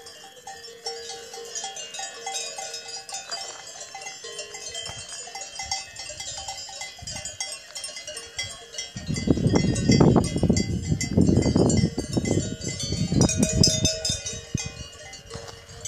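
Cowbells on grazing cows ringing irregularly, many clanks overlapping. From about nine seconds in, a louder low rumble surges over them a few times.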